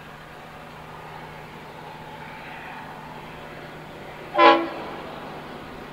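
Diesel locomotive G515, hauling aggregate hoppers, sounds one short blast on its horn about four and a half seconds in, over the steady low hum of the approaching train.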